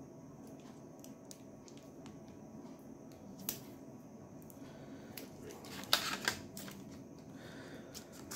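Faint handling noises of hands turning a stylus pen and picking up a paper card: scattered light clicks, one sharper click about three and a half seconds in, and a short burst of clicks and rustling about six seconds in.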